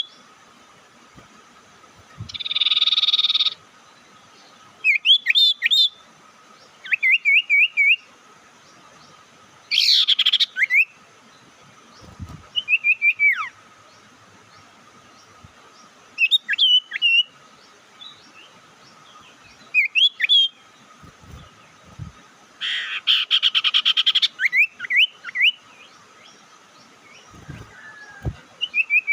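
Sirtu (mantenan, pied triller) calling: short phrases of quick, rising-and-falling chirping notes, repeated every few seconds, with a harsh buzzing chatter twice, about two seconds in and near the end. A faint steady whine runs under it.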